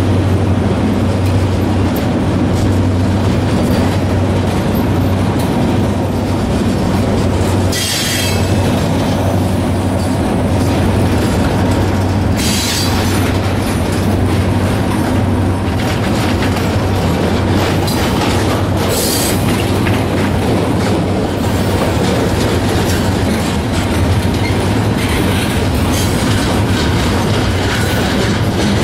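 Loaded freight cars of a long steel train rolling past: a steady rumble of steel wheels on the rails, broken by a few brief high-pitched wheel squeals.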